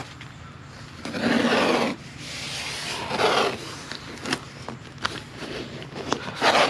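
Blue painter's tape being pulled off the roll in several ripping strips about a second long, the strongest about a second in and another near the end, with small clicks and crinkles between them as the tape is pressed down onto the leather seat.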